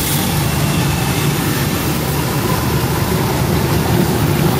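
CA-3000 bubble vegetable washer running: its air blower and water pumps hum steadily while air bubbles churn the water in the tank to wash onions.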